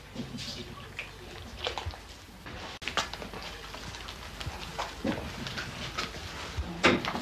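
Hands mixing and kneading flour dough in a ceramic bowl: irregular soft pats and squishes with scattered knocks, the loudest one near the end.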